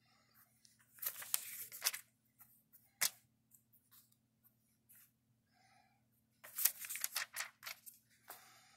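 Paper pages of a small booklet turned by hand. There is a rustling page turn about a second in, a sharp flick of paper around three seconds, and a longer rustle of pages near the end, over a faint low hum.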